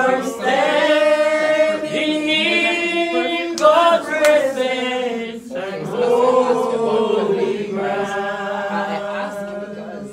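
Voices singing a slow worship song in long held notes, phrase after phrase.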